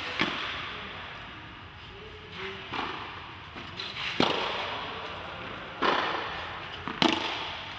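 Tennis balls being struck with rackets: about five sharp pops, spaced a second or two apart, each trailing off in the echo of a domed indoor tennis hall.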